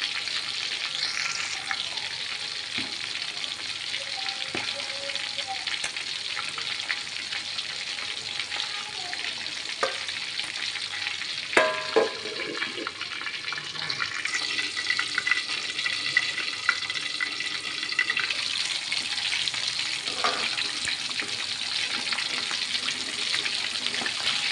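Chicken drumsticks deep-frying in hot oil in an aluminium wok: a steady sizzling crackle. About halfway through, the aluminium lid clanks onto the wok and the sizzle is muffled for a moment.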